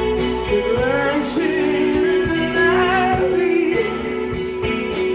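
Live rock band playing: electric guitars, bass and drums, with a sung vocal line coming in about half a second in over held guitar notes and a steady drum beat.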